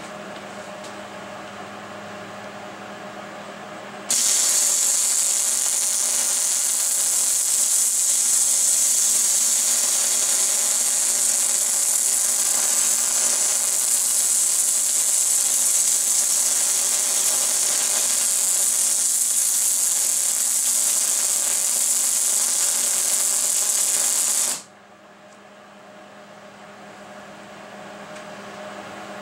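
MIG welding arc running for about twenty seconds as a plug weld fills a pocket in a steel brake bracket: a loud, steady hiss that starts suddenly a few seconds in and cuts off suddenly near the end.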